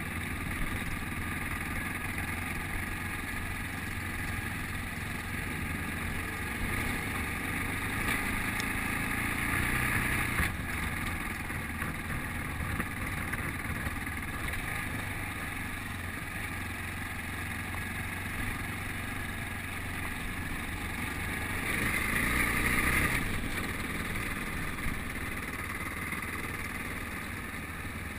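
Yamaha Ténéré's single-cylinder engine running as the bike is ridden along a gravel track, with a steady rush of wind and tyre noise. It grows louder twice, briefly: about eight seconds in and again about twenty-two seconds in.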